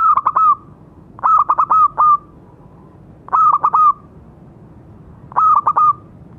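Zebra dove (perkutut) singing its cooing song: four short phrases of rapid, clipped notes, spaced about two seconds apart.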